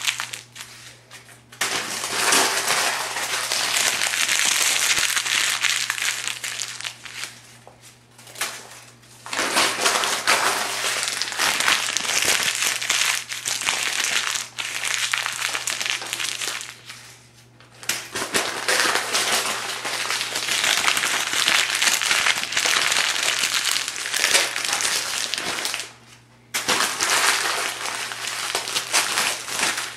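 Thin phone book pages being crumpled by hand, a dense crackling rustle in long stretches of several seconds with brief pauses between them.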